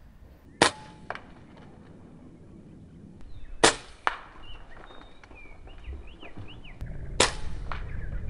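Three shots from an Air Arms Ultimate Sporter air rifle, about three seconds apart, each followed about half a second later by a fainter knock. Small birds chirp briefly between the second and third shots.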